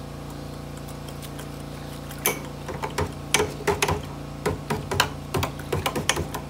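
Irregular sharp clicks and knocks of a metal stirring utensil against the side of a stainless-steel pot of hot motor oil, starting about two seconds in, over a steady low hum.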